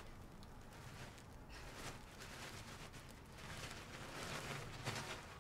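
Faint rustling of tissue paper being pulled open from a wrapped gift by hand, growing a little louder in the second half.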